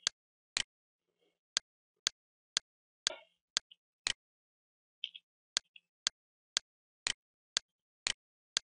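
Short, sharp clicks repeating evenly, about two a second.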